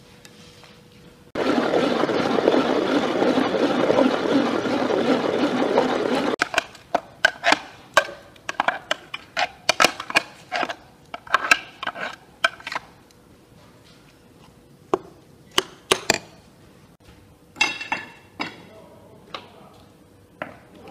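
Kitchen work: a loud steady rushing noise that starts and stops abruptly and lasts about five seconds, then a run of sharp clinks and knocks of dishes and utensils that thins out toward the end.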